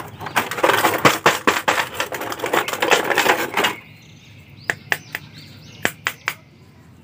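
Clear plastic blister tray crinkling and crackling as an action figure is worked out of it. About four seconds in the crackling stops, leaving a few separate sharp clicks as the plastic figure is handled.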